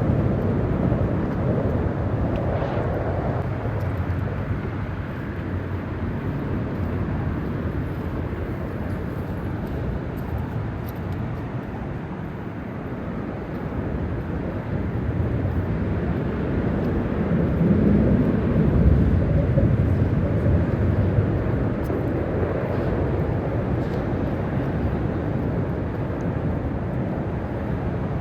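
A steady low rumbling noise that swells for a few seconds about two-thirds of the way through.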